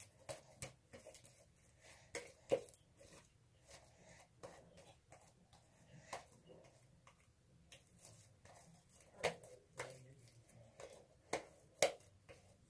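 Slime being squished and stretched by hand, giving irregular sharp clicks and pops.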